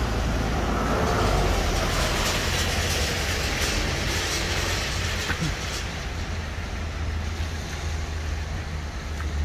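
A passing vehicle's loud rushing noise over a steady low hum. It swells over the first few seconds and eases off in the second half.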